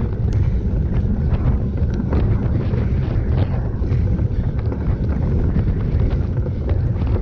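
Wind buffeting a handlebar-mounted action camera on a motorcycle racing over beach sand, a steady heavy rumble with the bike's engine muffled underneath and many short knocks and rattles scattered through it.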